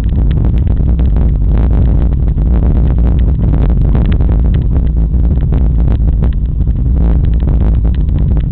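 Mountain bike descending a loose rocky track: a constant low rumble of wind and jolting on the camera microphone, with many small clattering knocks from the tyres and bike over the stones.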